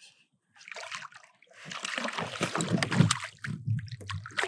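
Water splashing and sloshing as a hooked rainbow trout thrashes at the surface beside the kayak while being landed, starting about a second and a half in with many sharp splashes.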